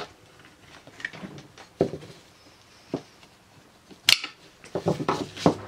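Scattered clinks and knocks of metal hand tools and engine parts being handled and set down on a workbench, with a sharp clatter about four seconds in and a quick run of knocks a second later.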